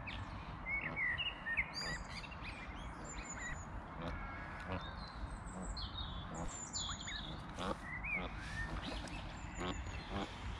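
Small birds chirping and twittering in short, scattered calls over a low, steady background rumble.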